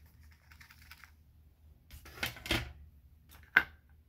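Light taps and clicks from handling a watercolor brush and a plastic paint palette: faint scratching at first, a couple of taps about two seconds in, and one sharp click near the end.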